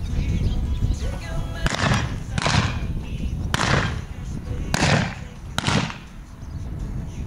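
Five blank gunshots fired from horseback in quick succession, roughly a second apart, over a song playing in the background.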